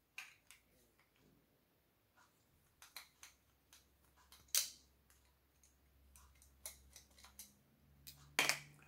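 Sparse small metallic clicks and taps of a screwdriver working the screws of a Stihl MS361 chainsaw carburetor. One sharper click comes about halfway through and a few quick ones near the end.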